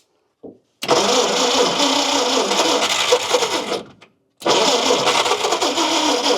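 A 1953 Kaiser Manhattan's Continental 226 flathead six, fed with stale old gas, firing up: it runs for about three seconds, cuts out, then starts again about four and a half seconds in and keeps running.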